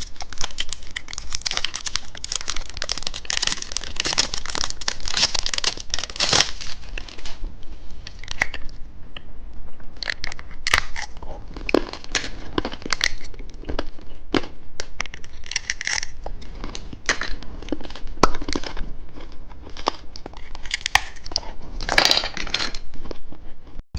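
Candy wrappers crinkling and tearing as sweets are unwrapped and handled: a dense run of crinkling for about six seconds, then sparser crackles and clicks.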